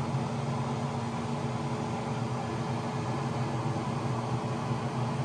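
Steady machine hum with an even hiss, running unchanged throughout: the constant drone of equipment left running in the workshop.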